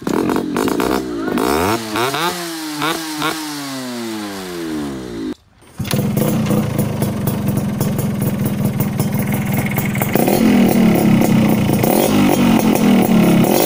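Two-stroke motorcycle exhausts with expansion chambers, heard in two short clips. First an engine note whose pitch falls away over a few seconds, then, after a brief cut, an engine running steadily that gets louder about ten seconds in. It is the bass-heavy chamber-exhaust sound the rider wants for his RX100.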